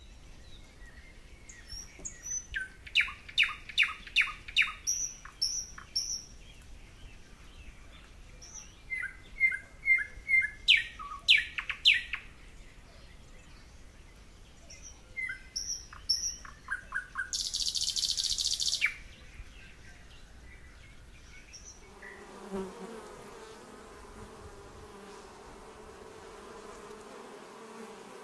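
Small birds singing in scattered bursts of chirps and quick trills, with one short buzzy burst about two-thirds of the way in. Later the birdsong gives way to a steady hum of western honey bees buzzing.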